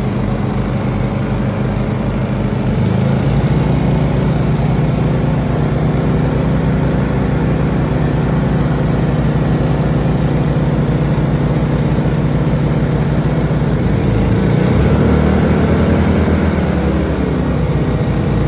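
Two Honda inverter generators running on natural gas under an electric load. Their engines speed up about three seconds in and change speed again about fourteen seconds in, as the generators follow the changing power draw.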